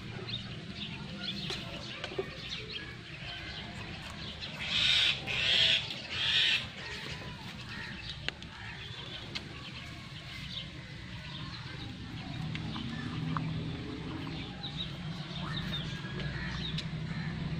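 Poultry calling and clucking, with three short, loud, harsh calls in quick succession about five seconds in, over a low steady hum.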